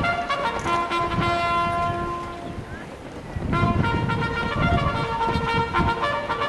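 Military brass band playing held notes for the honours. The music drops to a lull about three seconds in, then the brass and low drums come back in loudly.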